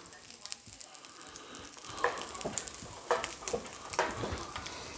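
Shrimp fried rice sizzling on a Blackstone flat-top griddle, a steady hiss with a few short clicks a couple of seconds in and near the end.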